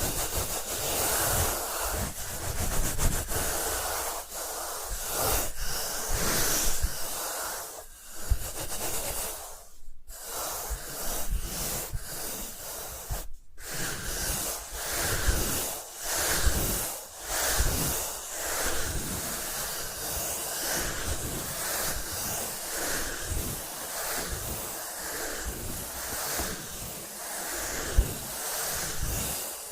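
Crinkling and rustling of a blind bag's plastic packaging being handled and opened, in irregular crinkles with two brief silent breaks about ten and thirteen seconds in.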